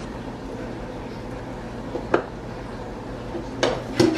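Frying-pan lid and spatula clanking: a single sharp clink about two seconds in, then a few louder clanks near the end as the lid is lifted off the pan, all over a steady low hum.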